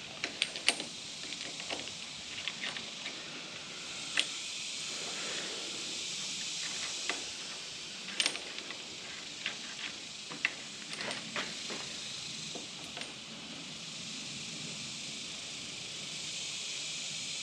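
Scattered light metallic clicks and taps of an Allen key and metal rack parts being handled as bolts are fitted, over a steady hiss.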